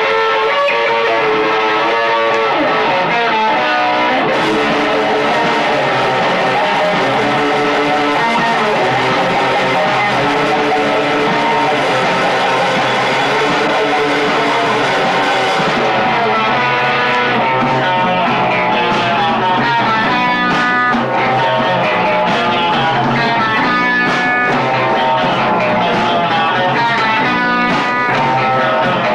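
Punk rock band playing live: electric guitars and bass over a drum kit. A cymbal wash fills the first half, then the drums settle into distinct, separate hits.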